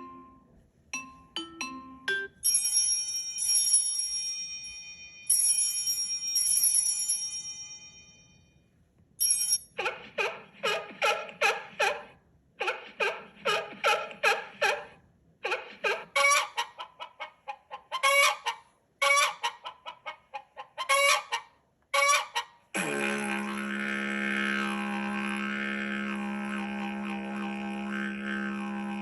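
Google Pixel phone ringtones played one after another: a few short tones, then ringing chime notes that fade away, then a long run of short pitched notes repeating in quick groups, and about three-quarters of the way in a steady buzzing drone tone starts.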